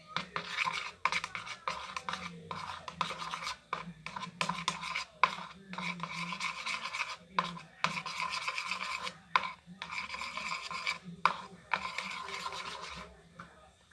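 A utensil scraping and rubbing around a container as glue and water are stirred together for slime, in a long run of strokes with short breaks between them.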